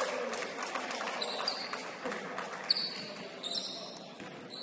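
Basketball game on a hardwood gym floor: the ball bouncing with a few sharp knocks, short high sneaker squeaks, and players' voices in the background.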